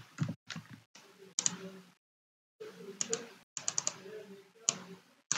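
Computer keyboard being typed on: a quick run of key taps, with a brief pause about two seconds in.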